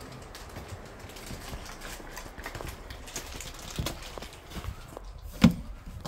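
Footsteps on a debris-strewn floor: irregular scuffs, crunches and small clicks, with one loud sharp knock about five and a half seconds in.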